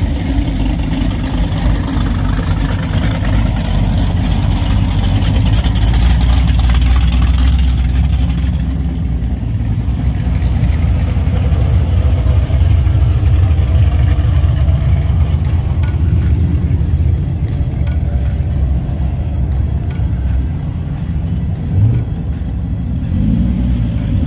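Cars driving slowly past one after another, engines running with a deep, low exhaust note: a Chevrolet SS sedan, a square-body Chevrolet C10 pickup and a Dodge Viper. One engine gives a short rev near the end.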